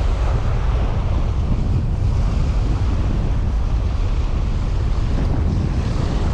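Strong storm wind buffeting the microphone: a loud, steady low rumble with a hiss over it.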